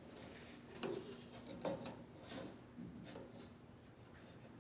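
Faint, scattered small taps and scrapes of a tool working a furnace's pilot-burner fittings as the pilot gas tube is disconnected, over a faint steady hum.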